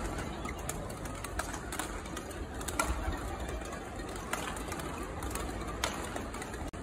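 Badminton rackets striking shuttlecocks: sharp, irregular pops about once a second, over the steady background noise of a sports hall.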